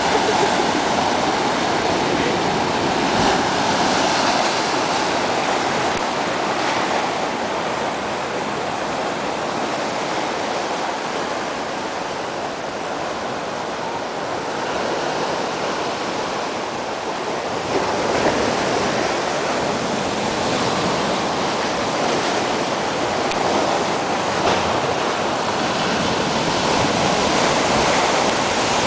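Ocean surf: waves breaking and washing up a sandy beach in a steady rush, easing a little midway and building again after.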